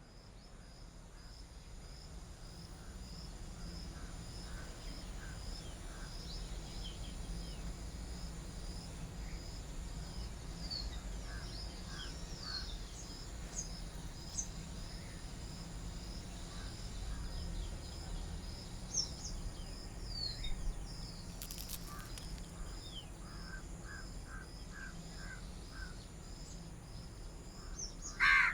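Outdoor nature ambience: an insect chirps in a steady, even pulse, with scattered bird chirps and calls over a low rumble. It fades in over the first few seconds, and a short louder call comes near the end.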